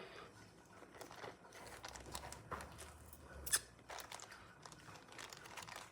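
Faint rustling and small clicks of a plastic zip-top bag being handled, with one sharper click about three and a half seconds in.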